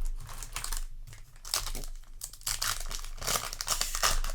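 Foil booster pack wrapper crinkling in the hands in repeated crackly bursts.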